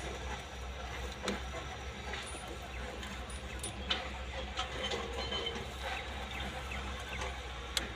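Scattered faint metallic clicks and clinks of hand tools on the bolts of an excavator engine's fuel injection pump mounting, over a low steady hum.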